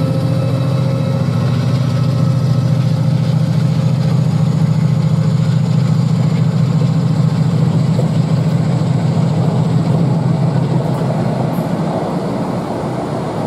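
Class 68 diesel-electric locomotive's engine working with a steady low drone as it pulls a rake of coaches past. The engine drone fades near the end, leaving the rumble of the coaches rolling by.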